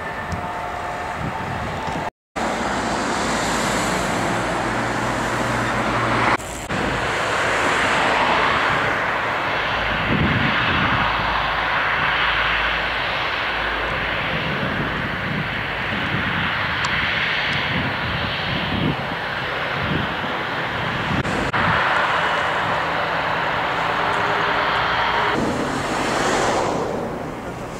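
Boeing 777-200ER turbofan engines at takeoff thrust: a loud, steady jet roar with a deep rumble. It cuts out for a moment about two seconds in, and its character shifts slightly at edits between takeoffs.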